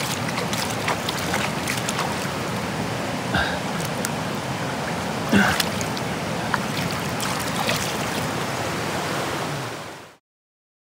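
Fast, shallow river water rushing over rocks, with several sharp splashes as a steelhead kicks in the shallows, the loudest about five seconds in. The sound fades out about ten seconds in.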